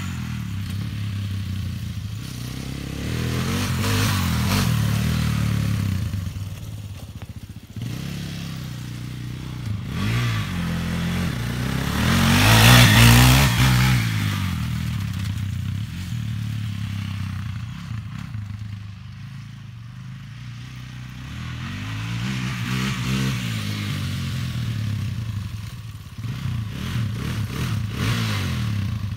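Quad (ATV) engine revving up and easing off while riding, its pitch rising and falling over and over, loudest about halfway through.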